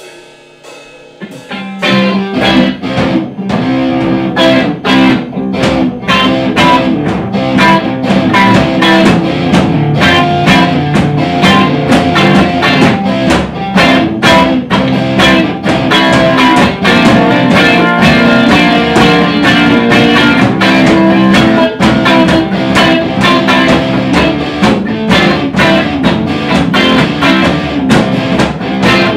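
Instrumental soul-blues played by a guitar-and-drums trio: rhythm and lead guitars over a drum kit. It opens quietly on a few held notes, and the full band comes in loud with the drums about two seconds in.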